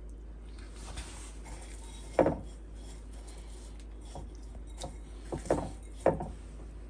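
Kitchenware knocking as breaded chicken pieces are handled: three main dull knocks about two, five and a half and six seconds in, with light rustling between.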